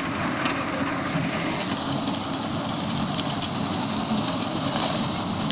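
Tractor running with a PTO-driven Yapel DG 140 reaper-binder cutting through dry reeds: a steady, dense mechanical din of engine, cutter bar and binder mixed with the rustle and crackle of stalks being cut and pushed over.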